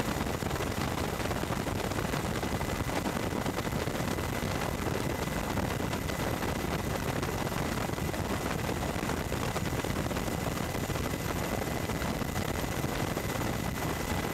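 Steady helicopter noise heard from aboard: a rapid, even rotor flutter over engine noise, with a thin steady whine.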